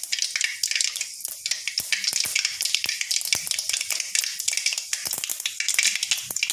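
Mustard seeds popping and crackling in hot oil in an iron kadai: a steady sizzle with many sharp little pops throughout.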